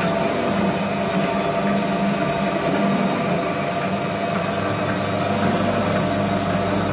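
Fully automatic long cotton wick-making machine running steadily with its motor and cotton cutter switched on, a constant mechanical drone.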